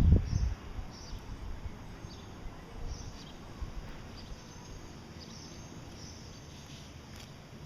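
Gouldian finches giving short, high calls every second or so, after a low thump right at the start.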